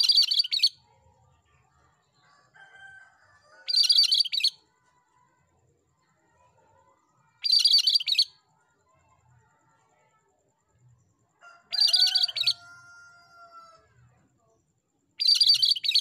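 Cucak kerinci (cream-striped bulbul) singing: five short, loud, high chattering phrases about every four seconds, with softer, lower whistled notes between them.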